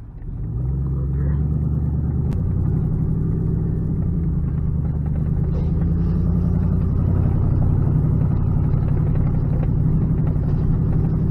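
Truck engine heard from inside the cab as the truck pulls away and drives on; the sound swells about half a second in, then holds as a steady, loud, low hum.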